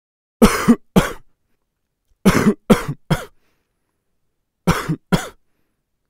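A person's dry cough, short hacking coughs in three bouts of two, three and two, with nothing coming up: the kind of dry cough typical of asthma, influenza or irritants.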